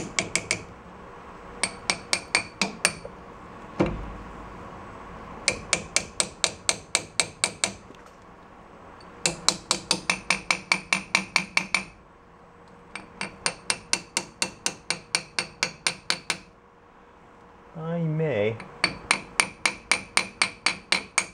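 Small hammer tapping on a bolt threaded into a VW bus rear axle end, trying to drive a new bearing into place in the reduction gear box. Runs of quick metallic taps, about five a second, with short pauses between runs and one duller thump about four seconds in.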